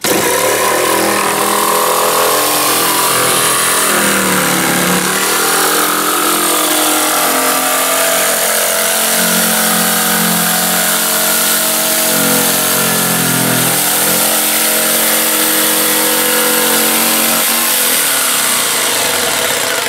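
Electric jigsaw running and sawing a curve through a thin plywood panel. The motor note sags briefly a couple of times as the blade is pushed round the bend, then recovers.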